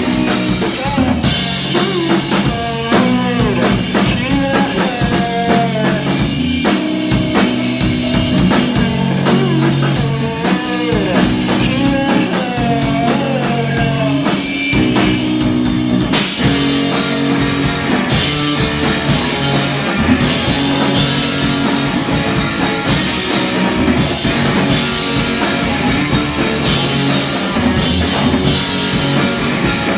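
Live rock band playing: drum kit, bass and electric guitar, with a melodic lead line bending in pitch through the first half and a change in the arrangement about halfway through.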